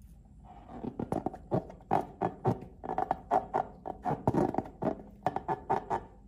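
Slime being squeezed and kneaded by hand, giving a quick run of sticky clicks and pops, about five a second, that stops near the end.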